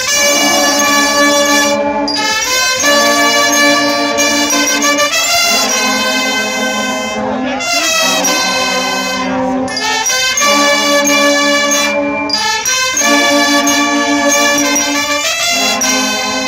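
A Guggenmusik carnival brass band of trumpets, trombones and sousaphones plays loud held chords in short phrases, with brief breaks between them.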